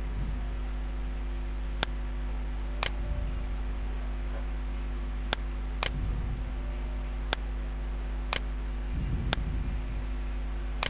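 Computer mouse clicking now and then, about half a dozen sharp single clicks at uneven intervals, over a steady low electrical hum.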